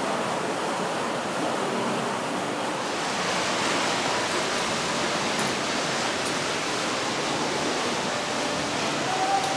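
Steady rushing of falling water, an even hiss and rumble that holds at one level.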